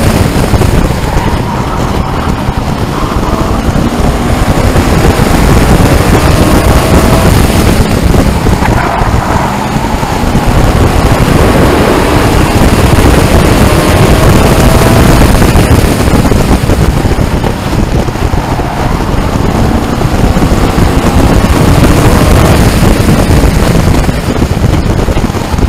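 Race truck engine running hard around an oval track, heard from a dash camera inside the cab: a loud, dense rumble with the engine pitch rising and falling as the truck laps.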